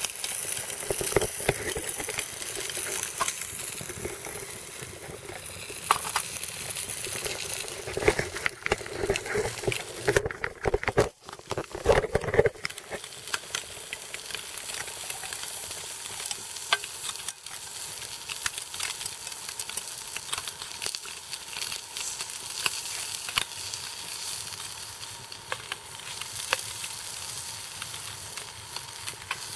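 Food sizzling in a camp pot over an alcohol stove, with a utensil stirring and scraping against the pot in the first dozen seconds, then a steadier sizzle with occasional light clicks.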